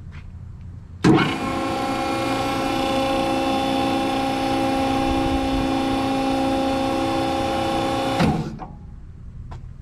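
Hydraulic power unit of a Southworth scissor lift table: its Lincoln Electric three-phase motor and pump start abruptly about a second in and run with a steady whining hum as the table rises. The unit shuts off near the end with a clunk and winds down.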